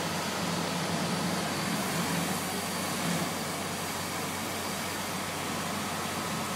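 Steady din of fire trucks' diesel engines running at the scene, with a continuous hiss of water from the aerial ladder streams.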